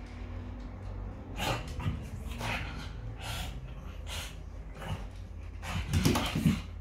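A pug and a basenji puppy play-fighting: a run of short, breathy dog sounds about once a second, the loudest two just after six seconds in.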